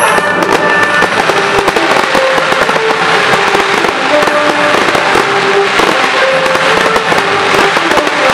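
A dense fireworks barrage bursts suddenly into a rapid, continuous run of cracks and bangs, with orchestral film music and a simple melody underneath.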